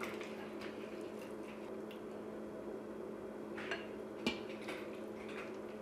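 Metal tongs scooping saucy beef and broccoli out of an Instant Pot's stainless steel inner pot into a bowl: soft wet squishes and light clinks, with one sharper clink a little past four seconds in. A faint steady hum runs underneath.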